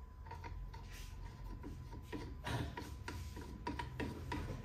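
Light, irregular clicks and rattles of a homemade belt-sander arm on a Hilti AG 4S-A22 cordless grinder as it is handled and adjusted by hand, with the motor off.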